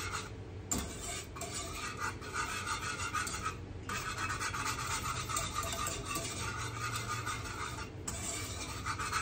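A utensil stirring thick Alfredo sauce in a pot, scraping steadily around the pan with a few short pauses.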